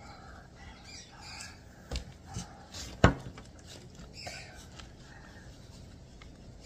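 Faint high-pitched squeals and babble from a young child, with a few sharp taps or knocks, the loudest about three seconds in.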